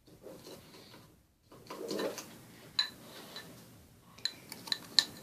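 A fork stirring glue and sugar in a container, its tines clicking and tapping against the sides: a few soft scrapes, then a quickening run of sharp clicks near the end.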